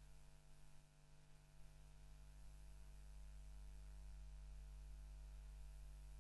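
Near silence: a faint, steady electrical mains hum with light hiss.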